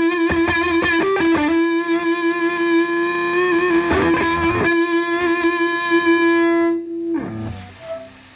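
Les Paul electric guitar played through a Marshall tube combo amp. A few quick notes lead into one long sustained note with vibrato, which slides down and dies away near the end, leaving low amp hiss.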